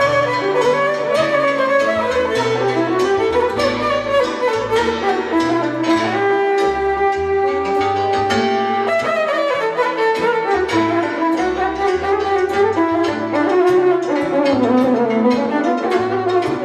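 Live lăutari band music led by an electric violin playing a winding, ornamented melody, holding one long note about six seconds in, over a steady rhythmic bass and chordal accompaniment from accordion, cimbalom and double bass.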